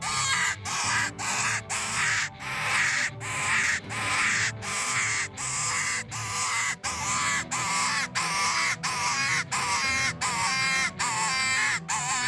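RO-D mouth-blown predator hand call squalling in a steady run of short, raspy, wavering cries, about three every two seconds.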